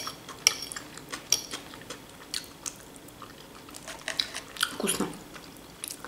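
Close-up chewing and mouth sounds of someone eating, with scattered clicks of a metal fork against a plate as salad is picked up; the sharpest click comes right at the start. A short low voiced sound comes just before five seconds.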